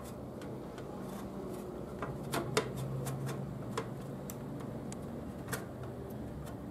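Scattered light clicks and taps from a Hikvision DVR's sheet-metal case and the hard disk inside it being handled, as the drive is shifted to line up with the case's mounting holes, over a steady low hum.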